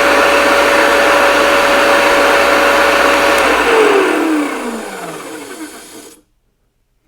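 Electric wet saw's motor and blade running at full speed with a steady whine. About three and a half seconds in it is switched off and winds down, the whine falling in pitch until it stops about six seconds in.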